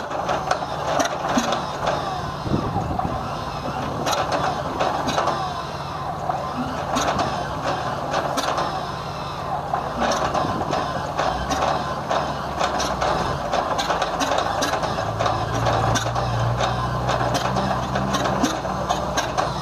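M47 Patton tank's air-cooled Continental AV-1790 V12 being cranked over on its starter for a cold start, a steady low whirring hum with clattering clicks, not yet catching, with vodka poured into the intake as starting fluid. The hum grows stronger in the last few seconds.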